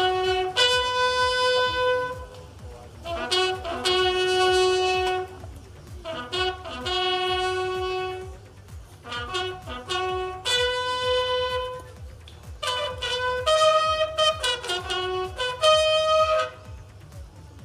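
Bugles sounding a slow ceremonial funeral call for state honours. Long held notes step between a few fixed pitches, in phrases separated by short pauses.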